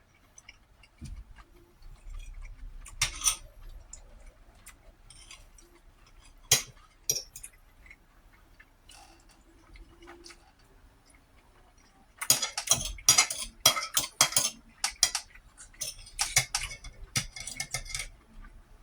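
Close-up eating sounds: sharp mouth clicks and smacks, with utensil clicks against a plate, scattered at first and then coming thick and fast for the last several seconds.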